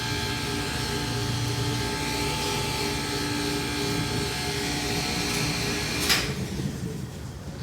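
Dover hydraulic elevator's dry-type power unit, its electric motor driving the oil pump, running with a steady whine and hum. A sharp click comes about six seconds in, and the sound then dies down.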